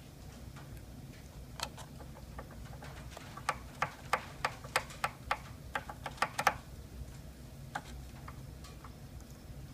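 Hex key clicking in the set screw of a motor pulley as it is turned and re-seated while the screw is tightened: a run of sharp metallic clicks, about three a second in the middle, with a single click before and after.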